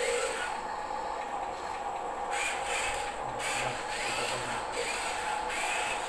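HUINA 1574 1:14 RC concrete mixer truck's small electric motors running with a steady whine, joined from about two seconds in by several short rising whirs and rubbing as the truck shifts across the wooden tabletop.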